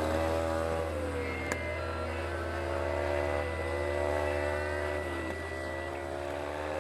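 Dirt bike engine heard on board through a helmet camera, revving as it is ridden; the engine note drops and climbs back about three times as the throttle is eased and opened again. A single sharp click about a second and a half in.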